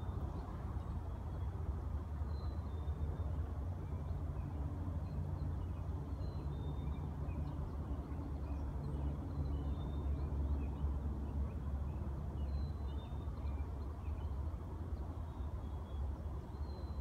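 Outdoor ambience: a steady low rumble with faint, short high chirps scattered throughout.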